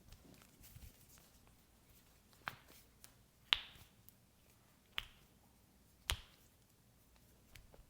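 Joints popping during a chiropractic adjustment of the arm: four sharp cracks about a second apart, the loudest about three and a half seconds in.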